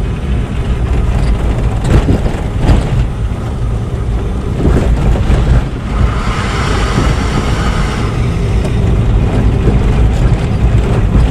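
Steady low rumble of a vehicle's engine and road noise on the move, with a few short knocks about two to five seconds in.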